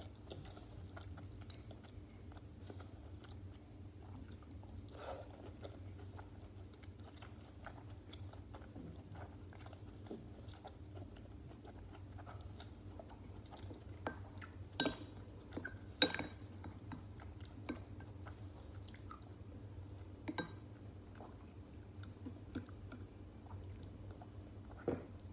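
Chewing and biting stuffed cabbage rolls close to the microphone, with scattered sharp mouth clicks. The loudest clicks come as a pair about two-thirds of the way in, over a steady low hum.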